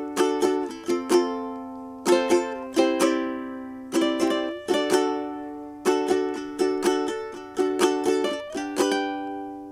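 Ukulele played in a steady rhythm of ringing chord strums, with a short slide up in pitch near the end.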